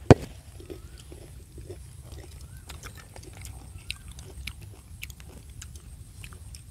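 Close-up chewing and lip-smacking of people eating grilled fish, with many small wet clicks and crunches and one sharp loud click at the very start.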